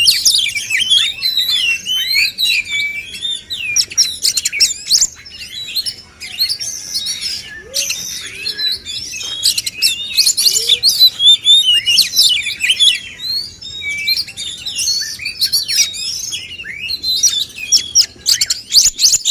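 Male oriental magpie-robin song: a fast, varied stream of chirps, slurred whistles and trills, with brief pauses.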